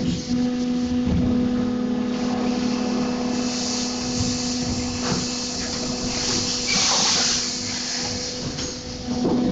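Armour injection moulding machine running its cycle for thin-wall containers with in-mould labelling: a steady hum under two longer hisses of air and a few short knocks as the mould and label robot move.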